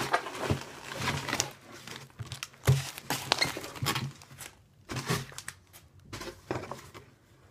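Crumpled packing paper crinkling and rustling in irregular bursts as it is pulled out of a cardboard shipping box.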